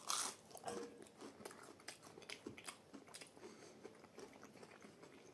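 A person biting into a breaded nugget and chewing it close to the microphone: a loud bite at the start, then irregular soft crunching chews.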